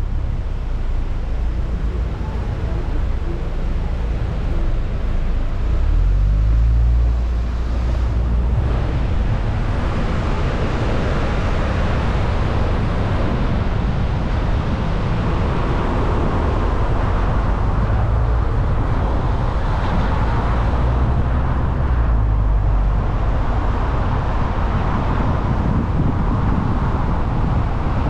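Car driving on city roads: a steady low engine and road rumble, with tyre and wind noise that grows louder about ten seconds in.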